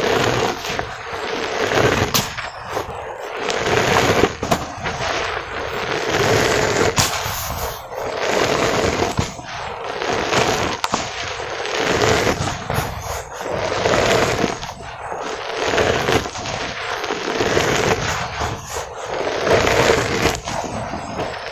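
Dry cement powder and soft cement balls crushed and crumbled by bare hands in a metal basin, the powder pouring back down. It makes a gritty crunching and sifting rush that swells and falls about every two seconds, with small cracks as lumps break.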